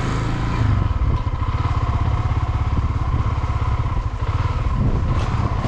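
Honda Twister 250's single-cylinder four-stroke engine running steadily as the motorcycle is ridden.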